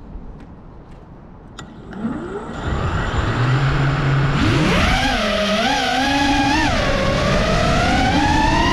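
Brushless motors of a 5-inch FPV quadcopter (FlyFishRC Sword 2207 1950KV) spinning under throttle. A few faint clicks come first, then a whine that rises about four seconds in, wavers up and down with the throttle, and climbs steadily near the end, over a rushing noise.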